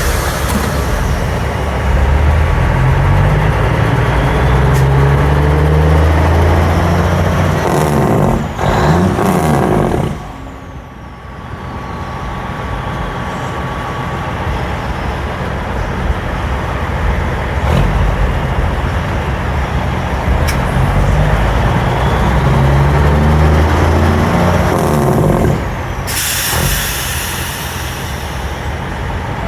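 Peterbilt semi truck's diesel engine revved up and held twice, each run ending in a sudden loud hiss of released air.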